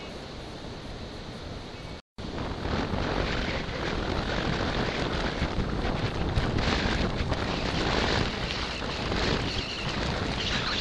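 Wind buffeting the microphone of a handlebar-mounted camera while cycling into a headwind. The sound cuts out for a moment about two seconds in, then returns louder and gustier.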